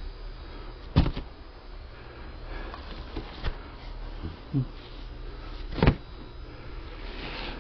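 Sharp knocks and handling noises from filleting fish: two loud knocks, about a second in and near six seconds in, with a few softer taps between, over a steady low hum.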